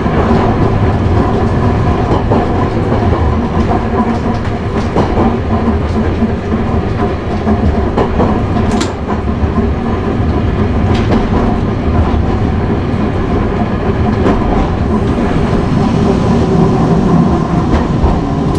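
Hankai Tramway Mo 161 tram running on street track, heard from the cab: the steady hum and growl of its nose-suspended (tsurikake) traction motors and gearing, with occasional clicks of the wheels over rail joints.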